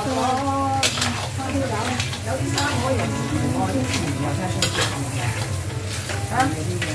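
Crab pieces sizzling in a wok as they are stir-fried, with a spatula clattering and scraping against the pan every second or two. A steady low hum runs underneath.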